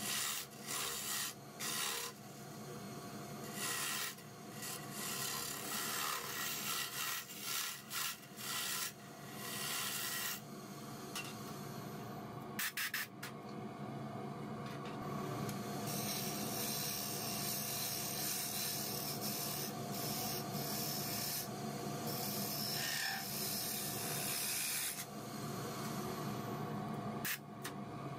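Wood lathe running with a steady motor hum. For the first ten seconds a turning gouge cuts inside the spinning wooden lid in short scraping surges, throwing shavings. Later, sandpaper pressed against the turning wood gives a dense, steady hiss.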